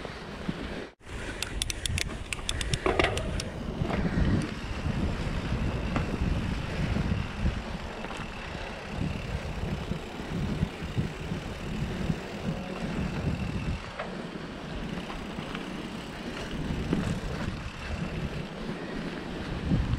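Wind buffeting the microphone and tyres rolling over a dirt trail on a downhill ride, with uneven low surges. A quick run of clicks comes about two seconds in.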